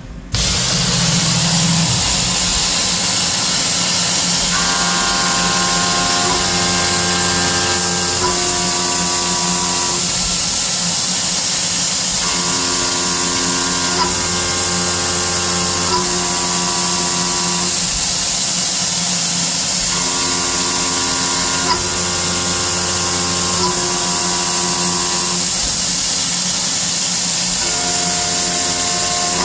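CNC milling machine's end mill taking a semi-finish pass around a slot in cold rolled 1018 steel, over a steady hiss that comes on suddenly at the start. A singing cutting tone changes pitch in three steps as the cutter works along the slot's walls, then drops out for about two seconds, repeating roughly every eight seconds.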